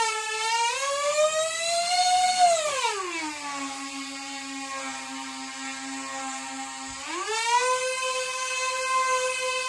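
Whine of a 30 mm electric ducted fan on a small indoor flying model. The pitch climbs for the first two and a half seconds, then slides down to a low, steady pitch for about four seconds. About seven seconds in it rises again and holds steady.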